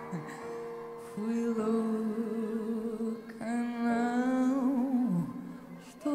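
Live pop band music: a woman sings long wordless held notes with vibrato over sustained keyboard chords. Her note slides down and fades a little before the end.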